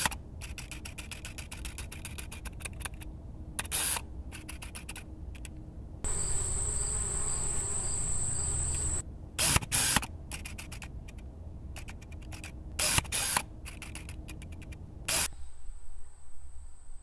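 Rapid clicking and crackling in two long runs, with a steady high insect drone, like crickets, in the pause between them about six to nine seconds in.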